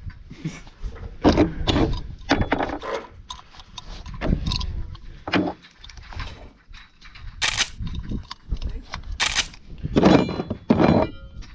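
Gloves and hand tools being handled on a pickup truck bed: rustling and knocks with a couple of sharp clicks, over wind rumbling on the microphone.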